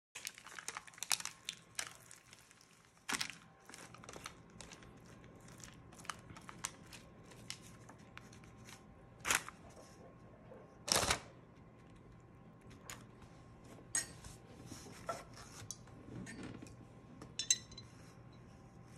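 Kitchen handling noise from spreading chopped cherries over a sponge cake on parchment paper: scattered taps, clicks and short scrapes of a metal offset spatula and rustling parchment, over a low steady hum. A brief ringing clink comes near the end.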